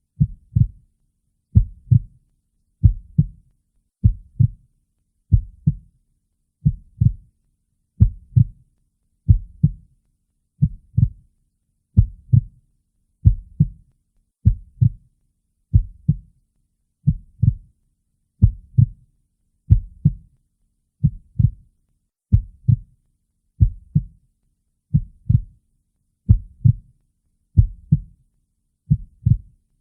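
Heartbeat sound: a slow, steady lub-dub, each beat a pair of low thumps close together, repeating about once every 1.3 seconds.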